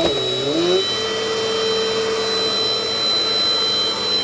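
Dirt Devil Dynamite Plus vacuum cleaner running steadily, a motor whine over rushing air. In the first second a cluster of wavering tones dips and rises, then fades.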